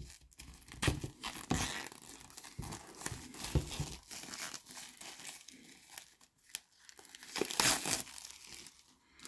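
Clear plastic shrink-wrap being peeled and pulled off a Mediabook case, crinkling and tearing in irregular bursts, loudest near the end.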